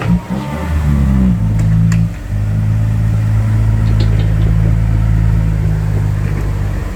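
Six-wheel dump truck's diesel engine revving hard, its pitch climbing over the first second or so. After a brief dip about two seconds in, it holds at high, steady revs under load.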